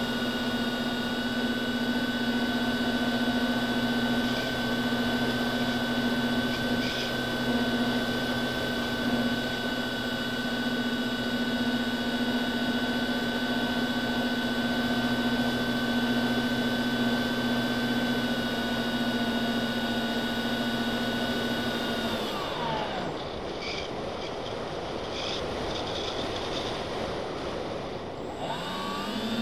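FPV quadcopter's brushless motors and propellers heard from the onboard camera: a steady high whine. About three-quarters of the way through the pitch drops away as the motors spin down and a rushing hiss takes over, then the whine rises back near the end as the motors spin up again.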